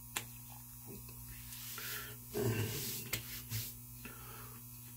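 A man's breathy exhales and grunts as menthol aftershave stings his freshly shaved face. There is a sharp pat of hands on skin just after the start, and the loudest breathing comes a little past halfway.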